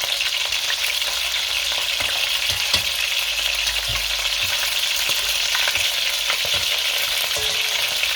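Chicken pieces sizzling hard in very hot olive oil in a pot as they are turned over to brown the other side, a steady frying hiss with scattered sharp ticks and pops.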